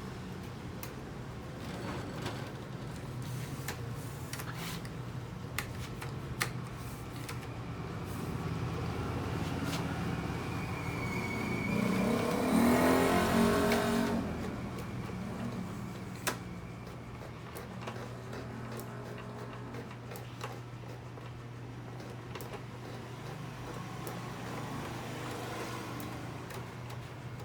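A motor vehicle passes by, swelling to its loudest about twelve to fourteen seconds in and then fading, over a steady low hum and scattered light clicks from parts being handled.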